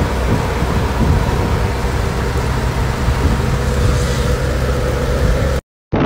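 Heavy rain pouring, with wind rumbling on the microphone and a faint steady hum underneath. It cuts off abruptly near the end, and a new outdoor recording begins.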